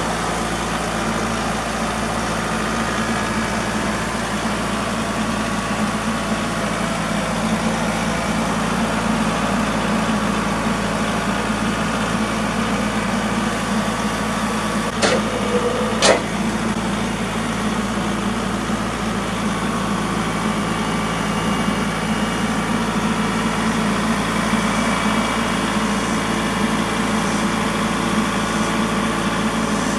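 Engine of a Frontier OS27 band sawmill running steadily, as on a cut through a red oak log. Two sharp clicks come about fifteen and sixteen seconds in.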